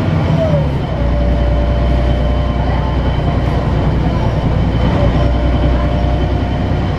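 Articulated diesel bus running on the road, heard from inside the passenger cabin: a steady engine-and-drivetrain rumble with a steady whine over it. About a second in, the engine note drops lower and settles.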